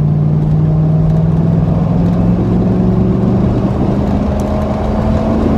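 Truck engine and exhaust heard from inside the cab, pulling away with the engine pitch rising gradually and steadily.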